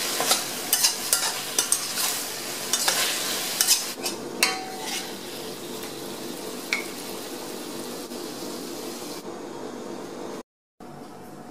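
Metal spatula scraping and clinking against a stainless steel wok over sizzling food, with a quick run of sharp scrapes in the first four seconds. After that the scraping thins out and the sizzle runs on more steadily as the food is scooped out, then drops away about nine seconds in.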